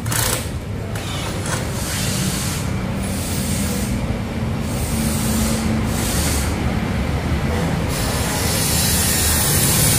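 Steady low rumble of street traffic with passing motorbike engines, mixed with rubbing and scraping from hand work on a scooter's exhaust mounting. A hiss grows over the last two seconds.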